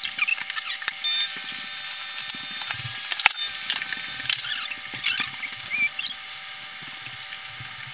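Adhesive tape and a flexible ribbon connector being slowly peeled off the glass of a small LCD screen: irregular crackling and ticking from the adhesive letting go, with a few short squeaks.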